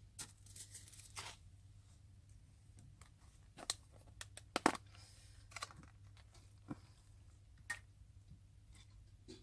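Faint, scattered handling noises: short rustles and tearing sounds with a few sharp clicks, the loudest click about halfway through, over a low steady hum.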